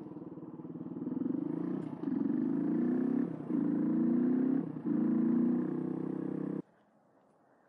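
Suzuki DR125 dual-sport motorcycle's single-cylinder four-stroke engine accelerating through the gears: its pitch climbs in three pulls, dipping briefly at each upshift. The sound cuts off suddenly about a second before the end.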